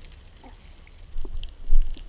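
Underwater sound picked up through a GoPro housing: a low water rumble with scattered sharp clicks and knocks, the loudest knock about three quarters of the way through.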